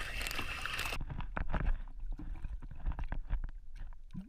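A hooked crappie splashing at the lake surface; about a second in, the sound turns to an underwater microphone, a muffled low water rumble with many small clicks around the fish on the line.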